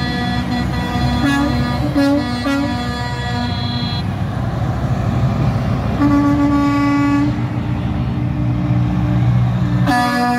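Semi-truck tractors rumbling past in a convoy while drivers sound their air horns: a few short blasts about a second in, a long blast about six seconds in, and another starting near the end.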